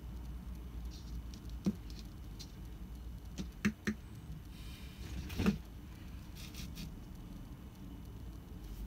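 A handful of short, sharp clicks spread over a few seconds. The loudest comes a little past the middle, led in by a brief hiss.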